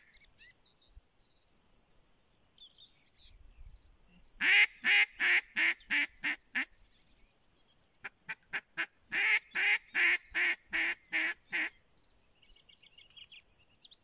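Live decoy hen duck quacking in two runs of loud quacks in quick succession: about eight some four seconds in, then about a dozen a few seconds later, each run fading toward its end. Faint songbird twittering in the quiet stretches between.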